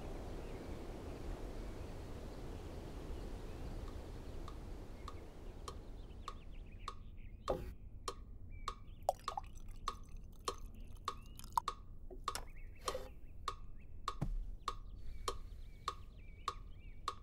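Steady mechanical ticking, about two ticks a second, coming in about five seconds in after a soft low rushing noise fades away. A few sharper, louder clicks and a low knock fall among the ticks.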